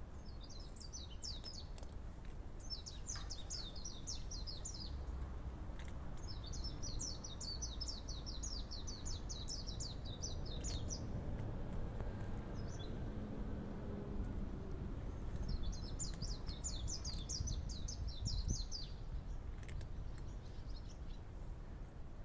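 A small bird singing fast, high trills of quickly repeated notes in four bouts, the longest lasting about five seconds, over a steady low outdoor rumble.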